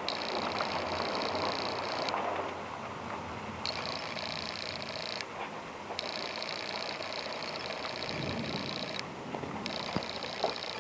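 Thunderstorm wind and rain, a steady rushing noise, with a high hiss that cuts in and out every second or two.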